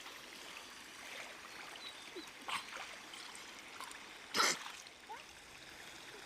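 Water trickling and splashing, with a short splash about two and a half seconds in and a louder one about four seconds in.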